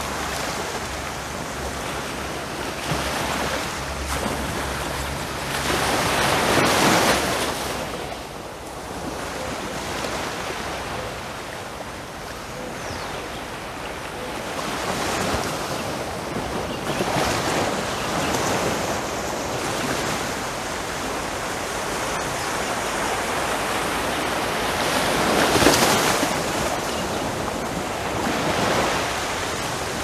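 Gentle sea waves lapping onto a sandy beach and washing back, rolling small stones as the water recedes. There are louder breaks at about six seconds and about twenty-five seconds in.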